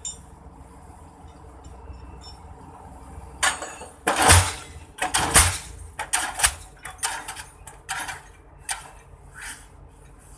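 A run of irregular metallic clanks and clinks, about a dozen knocks over six seconds with the loudest two near the start of the run, over a low steady rumble.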